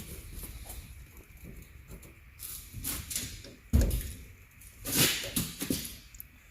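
A series of knocks and clunks of hand tools working against a pickup truck's steel door, the loudest a heavy thump about three and a half seconds in.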